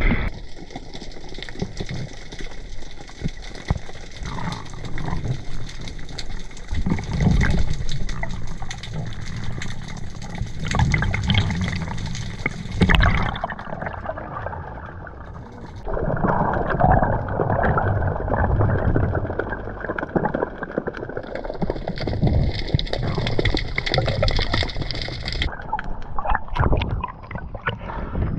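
Sea water gurgling and sloshing around a diver's camera in and under the water, with irregular small splashes; the sound changes abruptly a few times, about halfway through, a few seconds later, and again near the end.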